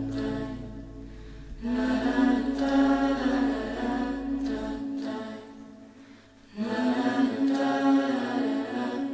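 A choir singing long held notes in two swelling phrases, the first starting about a second and a half in, the second near seven seconds in. A low steady tone underneath stops about five seconds in.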